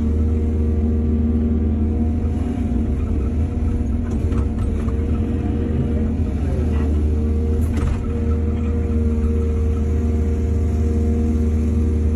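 Heavy diesel engine of an excavator running steadily under load, with a brief dip in pitch near the middle and a few light knocks.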